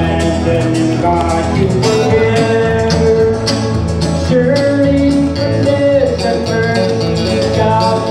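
Live band playing an upbeat gospel country-rock song: electric guitar and keyboard over a walking bass line and a steady drum beat.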